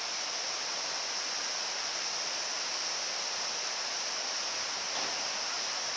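Steady rush of a waterfall, an even hiss that does not change.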